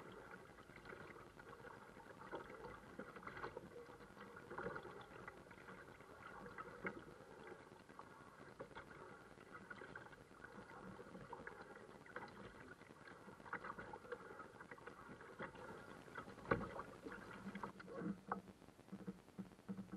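Faint kayak paddling: the paddle dips and splashes, water drips and laps against the hull, with scattered small clicks and knocks. One sharper knock comes about three quarters of the way through.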